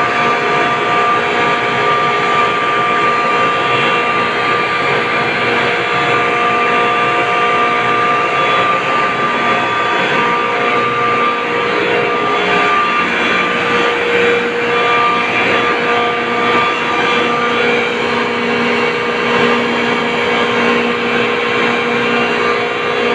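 Ice-plant reciprocating refrigeration compressors running steadily in the machine room: a loud, even mechanical din with several steady whining tones over it.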